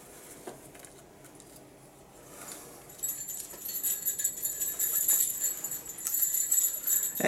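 Light metallic clicking and jingling of hands fitting a 9-volt battery onto its snap connector. It is quiet at first and becomes busier and brighter about three seconds in.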